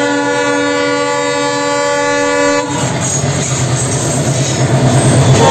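An Indian Railways WDM-series diesel locomotive sounds one long, steady multi-tone horn blast that cuts off a little under three seconds in. Then the locomotive's diesel engine and wheels are heard passing close on the adjacent track, growing louder towards the end.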